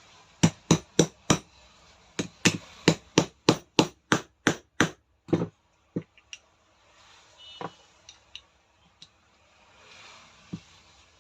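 Hammer blows tapping a part into place while a rotary hammer's new armature and bearings are fitted. There are four quick strikes, then after a short pause about a dozen more at roughly three a second, followed by a few lighter knocks and clicks.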